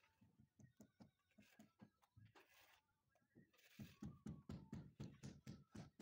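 Light tapping as tiles are bedded into place, irregular at first, then quicker and louder about four seconds in at around five taps a second.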